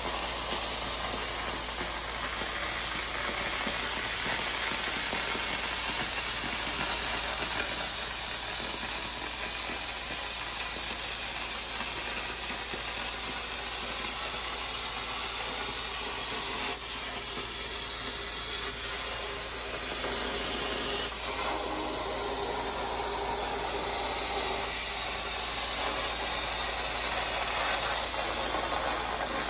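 Hypertherm plasma cutter's torch cutting sheet steel on a CNC table, the arc and air stream giving a steady loud hiss.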